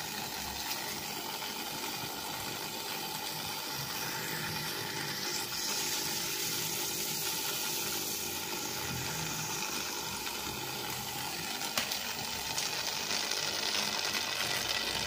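Mini protein skimmer running on a saltwater aquarium: a steady fizzing hiss of fine air bubbles churning the water in its chamber, growing brighter about five seconds in.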